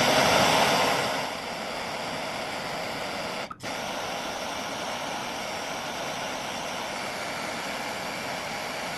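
Gas torch flame hissing steadily while heating the tips of a steel wire staple, louder for the first second and then settling, with a brief break about three and a half seconds in.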